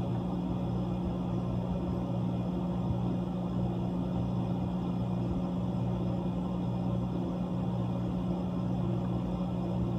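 Whirlpool ice machine's refrigeration compressor running, a steady low hum that does not change.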